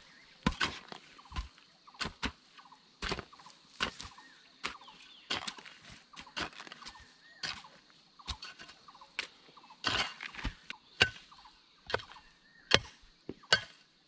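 Hand hoe chopping into the packed soil of a field bank: a steady series of sharp dull strikes, about one every second or a little faster.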